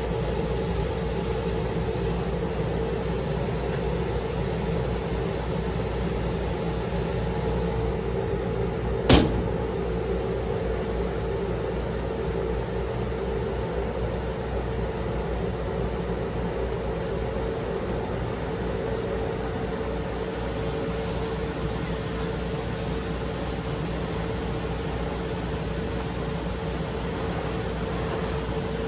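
A laser cutter running while it cuts acoustic foam: a steady machine hum with one steady mid-pitched tone, and a single sharp click about nine seconds in.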